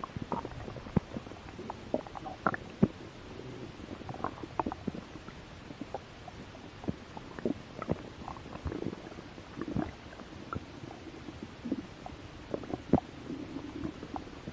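A hungry person's stomach growling: a run of irregular gurgles and quick pops, with longer low rumbles about halfway through and again near the end.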